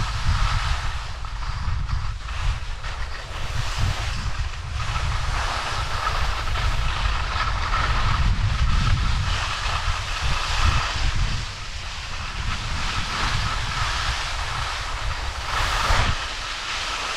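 Wind noise rumbling on the camera microphone while skiing, over the steady hiss and scrape of skis sliding on packed snow, with a brief louder swish near the end.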